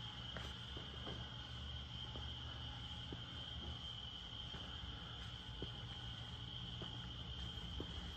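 Crickets trilling steadily and faintly, a continuous high-pitched drone, over a low hum with a few faint ticks.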